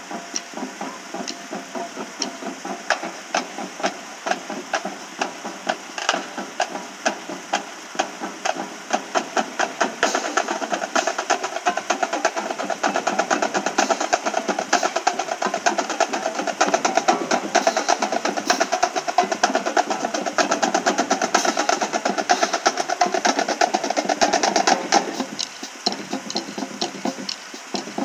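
School marching band playing on the march, its drums beating a steady, fast cadence. It gets louder about ten seconds in and falls back a little near the end.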